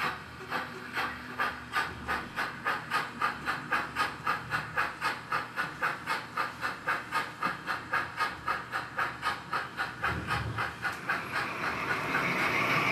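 Model steam locomotive's sound decoder playing steady, rhythmic steam chuffing, about four chuffs a second, as the HO scale engine pulls a freight train. Near the end a steadier running sound of another train rises.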